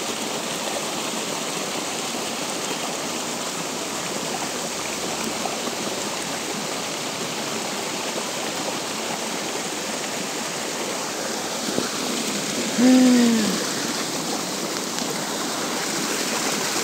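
Steady rushing of a stream and falling rain. About thirteen seconds in, a person gives a short falling vocal sound.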